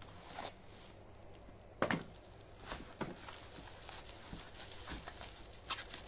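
Bubble wrap being handled and unwrapped, crinkling and rustling with scattered clicks and crackles; the sharpest crackle comes about two seconds in.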